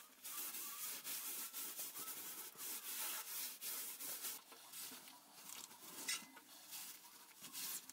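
Rubber-gloved hand smearing baking soda paste over the oven's floor and side walls, a faint rubbing in uneven strokes.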